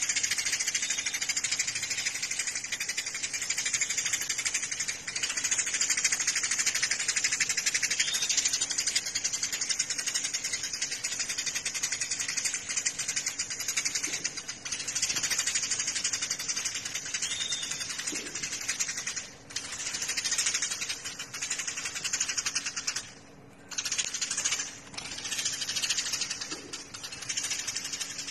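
A songbird's long, high-pitched buzzing rattle made of very fast ticks, broken by a few short pauses in the last third.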